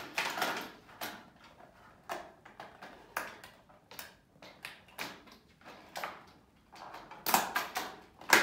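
Clear plastic eyelash case being handled as lash tweezers are fitted into its bottom compartment: a series of sharp plastic clicks and light knocks, about one a second, bunching up near the end with the loudest click at the very end.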